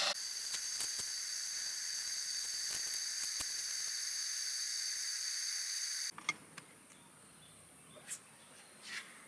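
Insects calling in a steady, shrill high-pitched chorus. About six seconds in, the loudest callers stop abruptly, leaving a fainter high chirring with a few soft clicks.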